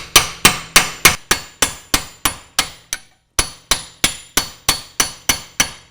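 A hammer repeatedly striking steel on a BMW E46's rear suspension, driving the rear axle shaft out of the wheel hub. The blows come steadily at about three or four a second, each with a short metallic ring, with a brief pause about three seconds in.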